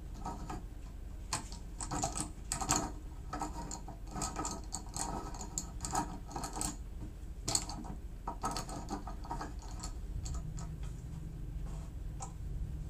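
Metal post of a pet barstool being twisted into its plastic conical base: a run of short, irregular scraping clicks as it turns, mostly stopping after about nine seconds, with one last click near the end.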